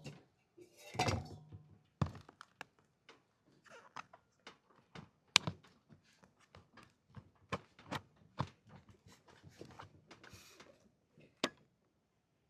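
Irregular light taps, clicks and soft knocks, with a sharper knock about five seconds in.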